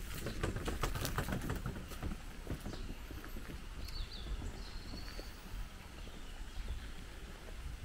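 Outdoor ambience: a quick run of taps and clicks in the first couple of seconds, then a few short high bird chirps about four seconds in, over a low steady rumble.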